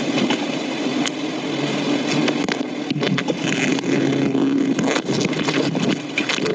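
Loud, steady buzzing of a large honey bee colony stirred up during honey harvesting from its exposed comb: a dense hum with scattered sharp clicks.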